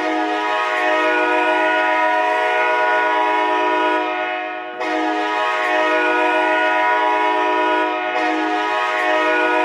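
Hockey goal horn, a deep multi-note air horn like a train horn, blowing in long steady blasts. The first blast fades out about four and a half seconds in and the horn sounds again straight after.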